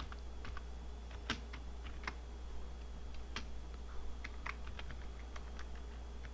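Slow, irregular keystrokes on a computer keyboard as a command is typed, over a steady low hum.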